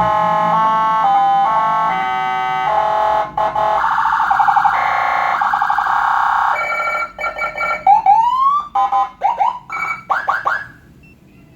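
Whelen HHS handheld dual-tone electronic siren cycling through its tones: about seven seconds of stepped tones that switch pitch every half second or so, then a run of short yelping chirps and a rising whoop, cutting off suddenly about a second before the end.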